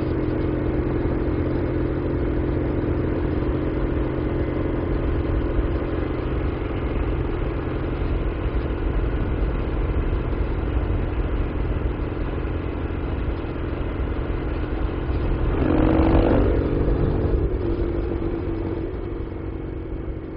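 Norton Commando's parallel-twin engine running steadily under way, heard onboard the moving motorcycle with wind rush on the microphone. About three-quarters of the way through, the sound briefly swells louder, then eases and falls away near the end.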